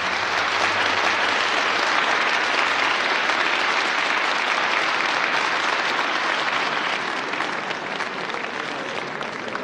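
A large audience applauding, a steady, dense clapping that eases off slightly in the last couple of seconds.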